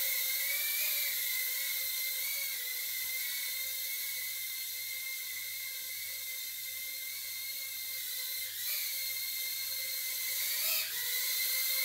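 Makerfire Armor Blue Bee 65 mm micro quadcopter in flight: a steady high-pitched whine from its tiny motors and propellers, rising briefly in pitch a few times as it manoeuvres.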